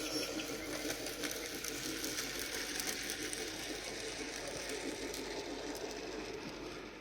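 Steady, rapid mechanical clatter of a train running on track, fading near the end.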